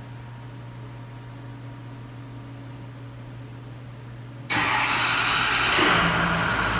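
A steady low hum, then about four and a half seconds in the Ford F-250's diesel engine cranks and starts on the remote start, suddenly loud and running on.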